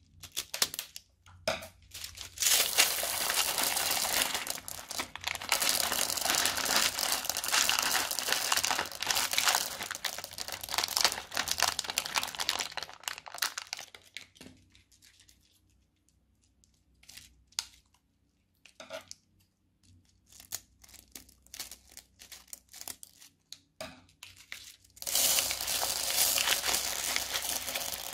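Clear plastic piping bag crinkling and rustling as it is squeezed and plastic beads tumble out of its cut tip into slime, after a couple of sharp scissor snips. The crinkling goes on for about eleven seconds, then drops to scattered faint clicks. Near the end another plastic bag of beads is handled and crinkles loudly.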